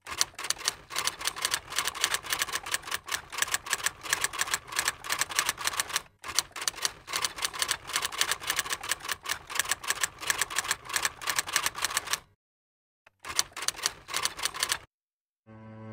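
Typewriter keys clacking in a fast, uneven run of keystrokes, breaking off briefly about six and twelve seconds in and stopping shortly before the end. Slow bowed-string music fades in at the very end.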